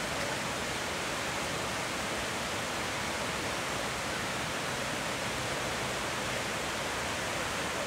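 Steady, even rush of flowing creek water over rocks, with no breaks or single events standing out.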